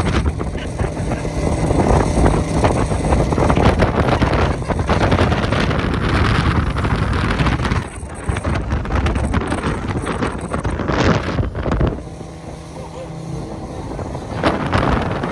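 Speedboat running fast over open water: heavy wind buffeting the microphone over the hum of its 50 hp outboard motor. The wind eases about twelve seconds in, leaving the engine's steady low hum plainer.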